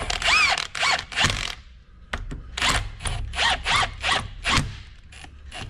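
Cordless drill driving bolts into a hydraulic pump housing in a series of short bursts, the motor winding up in pitch at each trigger pull. The bolts draw the spring-loaded pump segment together so the snap ring can be refitted on the shaft.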